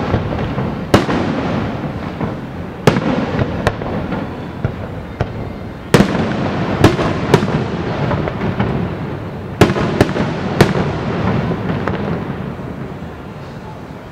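Aerial fireworks shells bursting overhead: about ten sharp booms, some in quick pairs and triplets, each trailing off into a long rolling rumble of echo. The barrage eases off over the last couple of seconds.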